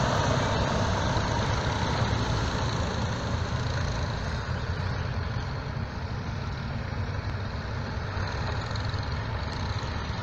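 Massey Ferguson tractor's engine running as it drives away, growing fainter over the first several seconds and then settling into a steady low hum.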